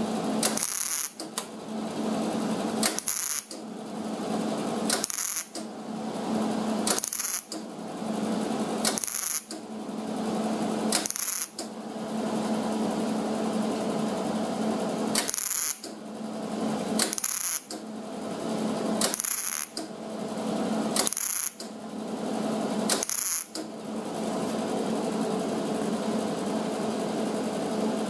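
MIG welder crackling as it lays a row of short welds along a lap seam in thin auto-body sheet steel, run at a low setting. It welds in runs of about two seconds, with two longer runs of about four seconds, and stops briefly about a dozen times, with a short high hiss in each stop.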